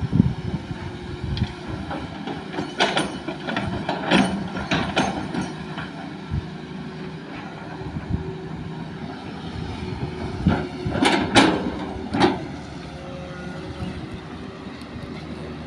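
Hitachi excavator's diesel engine running steadily while it digs and loads soil into a dump truck, with clusters of knocks and clatters about three to five seconds in and again around eleven to twelve seconds in.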